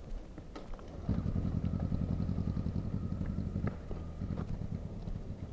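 Flooded motorcycle engine catching during a push start: it fires unevenly for about two and a half seconds, starting about a second in, then fades and dies.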